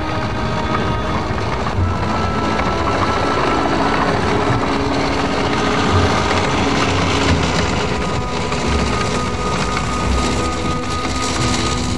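Tracked all-terrain carrier driving past over tundra, its engine running steadily with a low rumble, loudest near the middle as it passes closest.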